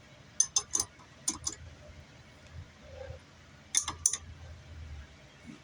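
Sharp metallic clinks of steel lathe tooling being handled: a quick change tool post and tool holder knocked together while being fitted to the compound slide. There are five quick clinks in the first second and a half and two more about four seconds in.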